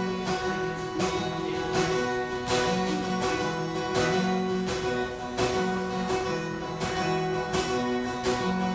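Acoustic guitar strummed steadily, about two strums a second, playing the instrumental intro to a song.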